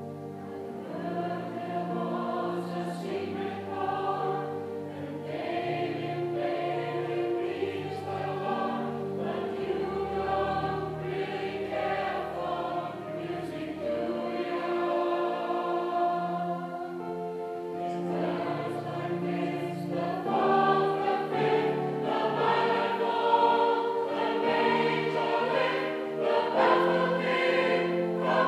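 Gospel choir singing in chorus over a low, stepping bass line, growing louder about two-thirds of the way through.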